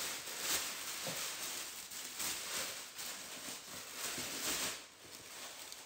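White tissue paper crinkling and rustling as it is pulled and handled in a shoe box, the crackle coming in uneven surges.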